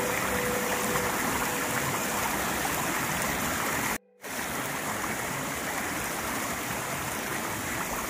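Steady rush of water falling and flowing over rocks at a waterfall, broken by a brief dropout to silence about four seconds in.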